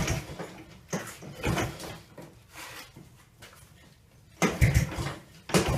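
Recoil pull starter on a Kawasaki KLF110 Mojave quad being yanked several times, each pull a short rasping rattle, the hardest ones near the end. The engine is being pull-started because the uncharged battery cannot work the electric starter, and it does not settle into a steady run.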